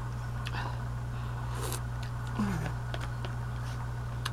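Steady low electrical hum, with soft eating noises, chewing and small clicks of a wooden fork, and one short falling vocal murmur about two and a half seconds in.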